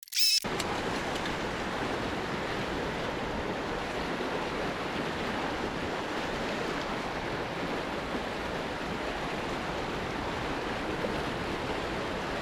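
Steady rush of a mountain stream's flowing water, after a brief high-pitched sound at the very start.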